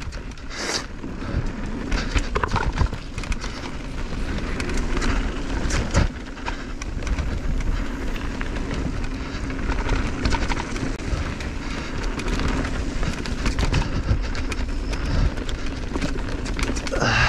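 Intense M16 downhill mountain bike descending a rough dirt trail: tyres rolling over the ground with a steady rumble, and frequent knocks and rattles as it hits bumps.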